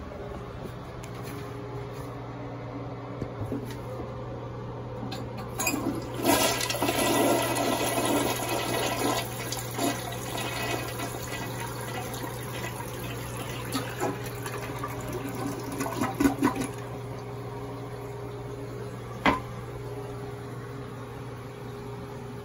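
A 1970s-or-80s Briggs 102 toilet flushing: the water rushes in loudly about six seconds in, swirls down the bowl and trails off in uneven gurgles. A single sharp click comes about nineteen seconds in, over a steady low hum.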